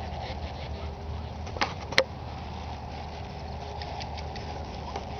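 A horse moving at a walk on soft arena dirt, its hooves faintly thudding over a steady low rumble. Two sharp clicks come about a second and a half and two seconds in, the second the loudest sound.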